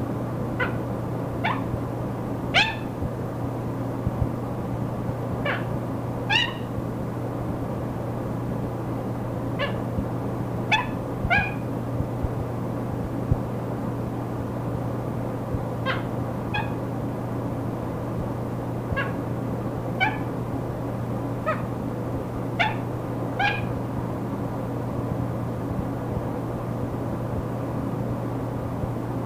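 Monk parakeet (Quaker parrot) giving a string of short, sharp chirps, one every second or so with longer pauses between, over the steady hum and static of an old recording.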